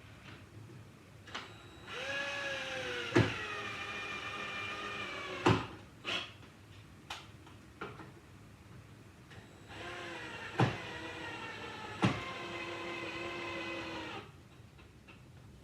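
Power drill running in two bursts of a few seconds each, its motor whine dipping in pitch under load and then steadying, as it drives screws into wood. Several sharp knocks stand out, louder than the whine.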